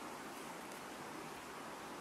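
Steady outdoor background noise, an even hiss with no distinct knocks or calls.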